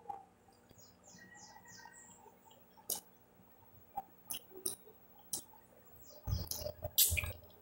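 A person chewing and gnawing boiled chicken off the bone by hand, with wet mouth clicks and smacks, loudest near the end. A few faint high chirps sound about a second in.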